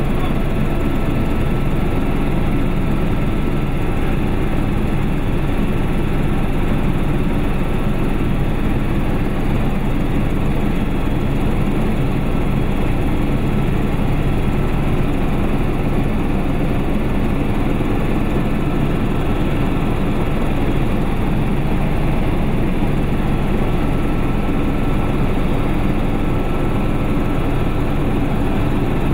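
Helicopter engine and rotor noise heard from inside the cabin: a loud, steady drone with an even hum that does not change.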